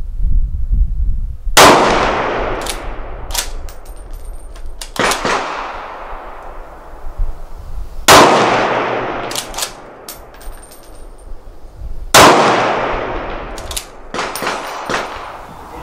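Three loud rifle shots from a .308 Savage Impulse fired through a Rugged Rx muzzle device, each with a long echoing tail, a few seconds apart. Another shot comes about five seconds in. Between shots there are sharp metallic clicks and clinks as the straight-pull bolt is cycled and spent brass lands.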